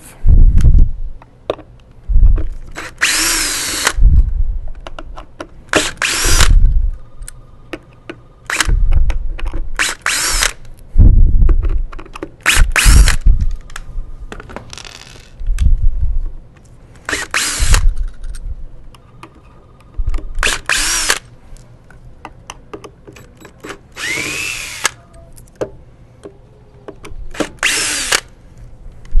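Cordless drill backing screws out of a wet/dry vacuum's motor head and base seal, in about ten short runs with pauses between. The motor whines briefly at each run, and low knocks come from handling between runs.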